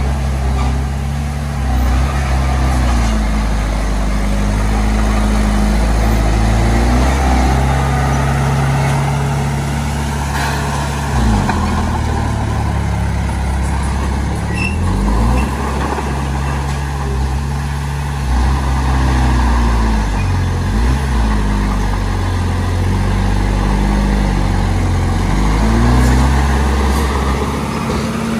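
Diesel engine of a small Komatsu D20P crawler bulldozer working, its pitch rising and falling again and again as the load changes while it pushes fill.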